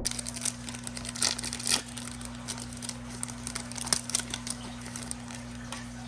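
Basketball card pack wrapper being torn open and crinkled: a run of sharp crackles, busiest in the first two seconds, over a steady low hum.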